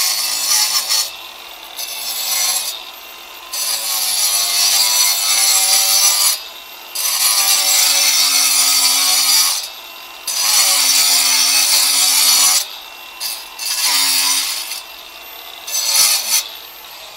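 Small handheld power saw wet-cutting a stone slab, with water fed onto the blade to keep down silica dust. The blade grinds through the stone in about seven passes of a few seconds each, easing off briefly between them.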